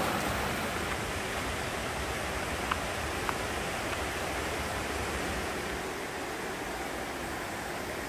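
Mountain stream rushing over boulders and stones, a steady, even rush of water. Two faint short ticks sound close together about three seconds in.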